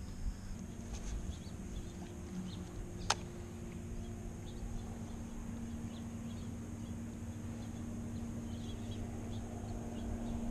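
Faint outdoor ambience on the water: a steady low hum, faint scattered high ticks, and one sharp click about three seconds in.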